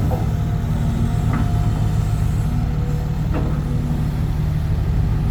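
Heavy diesel engine running steadily at a low rumble, with a few brief knocks about a second apart early on and one more past the middle.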